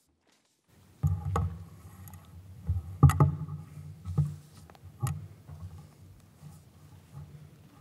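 Handling noise on a lectern microphone as it goes live: a low hum starts about a second in, with a run of sharp knocks and thumps as things are set down and moved at the lectern, the loudest about three seconds in.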